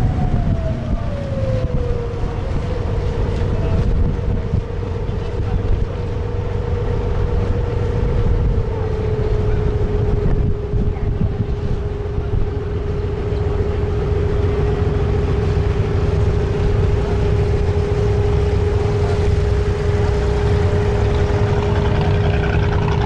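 A wooden abra water taxi's inboard diesel engine running under way. Its pitch drops about a second in and steps down again about eight seconds in as the boat slows towards the landing. Wind buffets the microphone over the engine.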